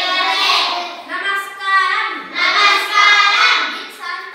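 A group of children chanting in unison in a sing-song recitation, in phrases with short breaks between them.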